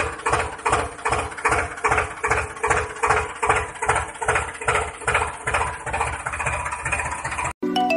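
Diesel tractor engine chugging steadily at about three beats a second, cutting off near the end as music starts.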